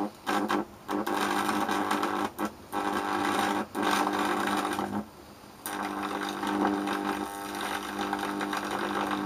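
High-voltage electric arc buzzing as it burns a neon test screwdriver. It cuts out abruptly about five times, the longest gap about half a second just after the middle, and strikes up again each time.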